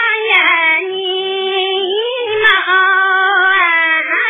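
A high voice singing a slow melody with long held, wavering notes.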